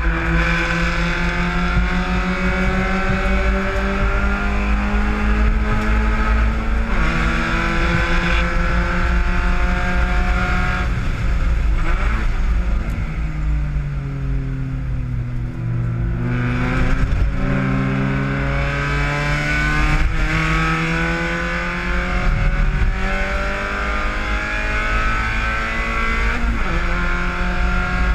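Spec Miata race car's four-cylinder engine heard from inside the cockpit at racing speed. Its pitch climbs under throttle and steps down at an upshift about seven seconds in, falls from about twelve to sixteen seconds as the car slows, then climbs again.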